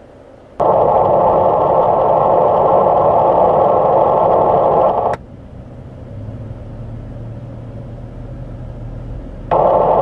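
An NXDN digital radio transmission heard on a Whistler scanner in analog narrowband FM mode, which cannot decode it, so it comes out as a steady raspy digital buzz with no voice. There are two bursts: one about four and a half seconds long starting half a second in, and another starting near the end, with a quieter low hum between.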